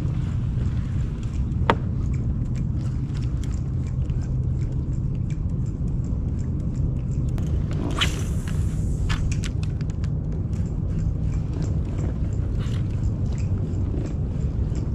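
Steady low rumble with a faint hum under it and light scattered ticks, a sharp click about two seconds in, and a brief hissing swish about eight seconds in.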